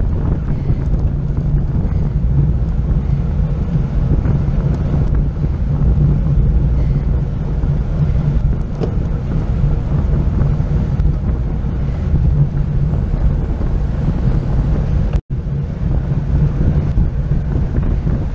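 Steady wind buffeting the microphone of an action camera on a racing bicycle riding in a pack at speed, a loud low rushing. The sound cuts out for an instant about fifteen seconds in.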